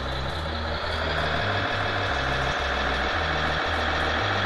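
Music with a pulsing, stepping bass line, over the drive noise of a 1/14 scale RC tipper truck that gets a little louder about a second in.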